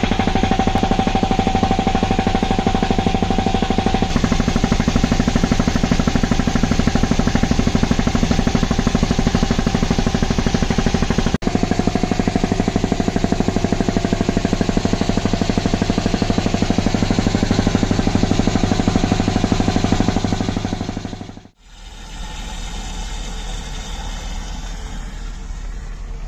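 Champion piston air compressor, driven by a new 5 hp 230 V WEG electric motor, running under load with a fast, even pulsing beat. After a brief break near the end it carries on quieter.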